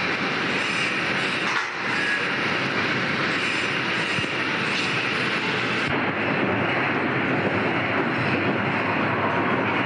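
Automatic wire mesh welding machine running in production: steady, dense mechanical clatter and noise.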